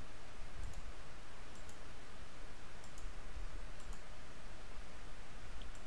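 Computer mouse clicking: four short, sharp clicks, each a quick double tick, spaced irregularly over a steady low background hum.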